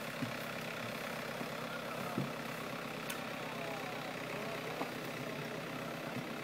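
A steady engine idling, with a few faint short clicks over it.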